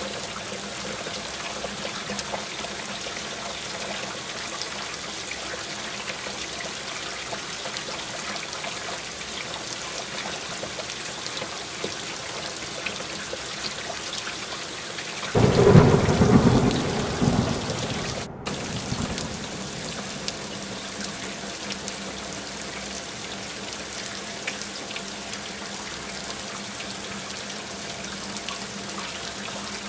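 Steady rain falling, with a sudden loud thunderclap about halfway through that rumbles away over a few seconds.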